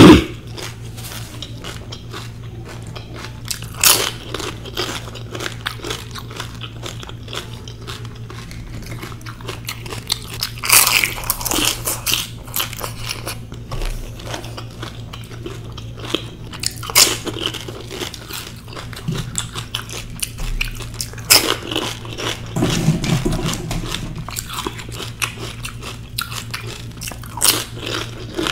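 A person chewing mouthfuls of pani puri with crisp fried puri shells crunching in the mouth. Louder crunches come every few seconds over softer wet chewing, with a low steady hum underneath.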